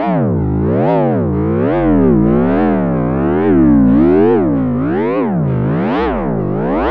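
Synthesized sci-fi glitch sound effect: one buzzy electronic tone whose pitch swoops up and down in an even wobble, a little more than once a second.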